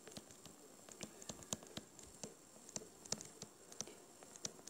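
Faint, irregular light taps and ticks of handwriting on a tablet touchscreen, several a second.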